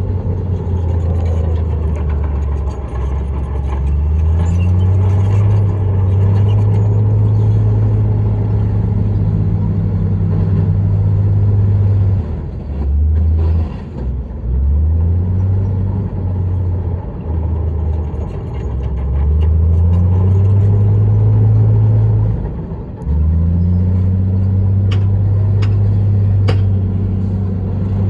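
Heavy diesel engine of an earthmoving machine working under load, its note rising and falling over and over as it is throttled up and eased off, with two short dips. A few sharp clanks come near the end.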